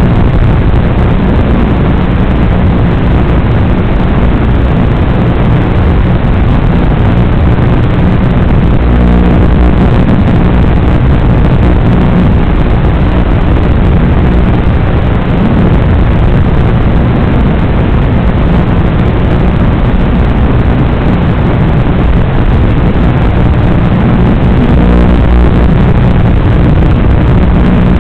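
Onboard sound of an RC Formula 1 car being driven: the motor and drivetrain running with tyre noise, heard as a loud, steady, muffled rumble with no sharp events.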